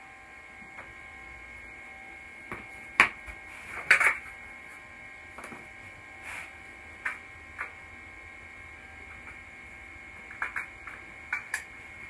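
Scattered light clicks and knocks of aluminium aircraft parts being handled and positioned on a flaperon spar at a workbench, the loudest about three and four seconds in, over a steady electrical hum.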